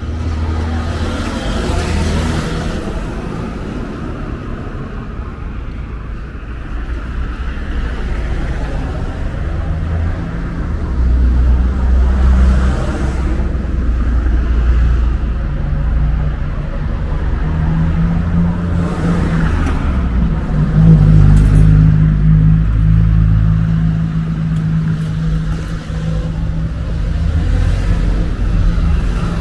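Street traffic: motor vehicle engines running and passing close by, a low steady engine hum that grows louder in the second half.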